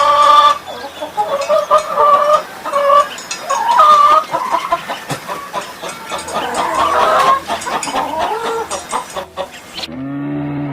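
Hens clucking, several birds calling over one another in short, choppy pitched calls; the sound cuts off sharply near the end.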